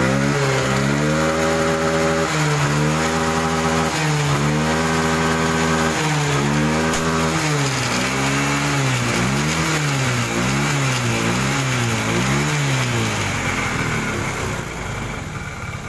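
Yamaha Xeon scooter engine, just kick-started, revved repeatedly. It is held high for several seconds with a few dips, then blipped quickly about once a second, and settles to idle near the end. It runs again now that the valve clearances have been reset to cure a loss of compression.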